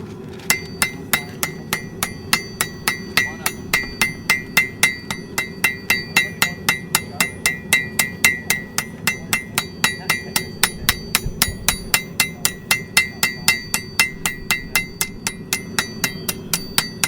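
Hand hammer striking hot iron on an anvil in a steady rhythm, about three blows a second, each blow ringing with the anvil's clear high tone.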